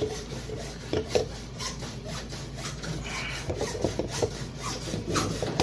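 Hand saw cutting through 2-inch PVC pipe: a run of rasping strokes, about three a second.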